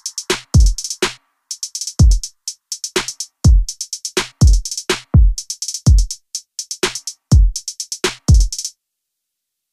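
Background music: an electronic drum-machine beat of deep kick-drum hits, about two a second, with quick runs of hi-hat ticks. The beat cuts off about a second before the end.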